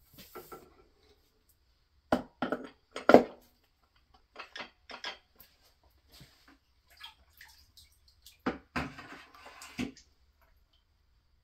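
Metal transmission parts knocking and clinking as the 4L80E's overdrive assembly and input shaft are lifted out and set down. There are three sharp knocks a couple of seconds in, then softer clinks, then a rattling clatter of overdrive clutch plates near the end.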